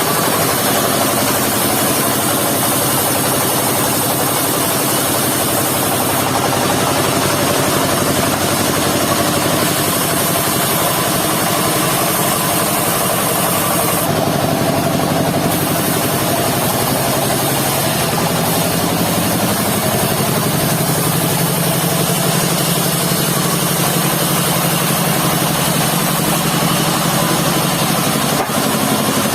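Engine of a mobile circular-saw sawmill running steadily, its pitch rising a little about two-thirds of the way through.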